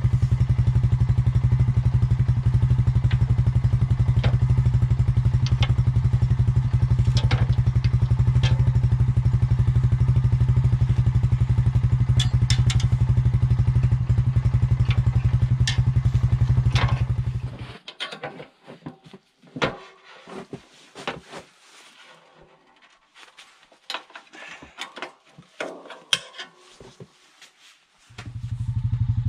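Honda Rancher ATV engine idling steadily, with light metal clicks as the front snow plow blade and its mount are worked by hand. About 18 seconds in the engine sound stops, leaving scattered metal clanks and knocks from the plow. Near the end the engine is heard running again.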